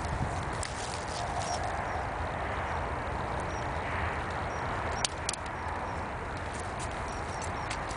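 Highland cattle hooves stepping on frozen, snowy ground: scattered irregular clicks and knocks over a steady rushing background noise, with a sharper knock about five seconds in.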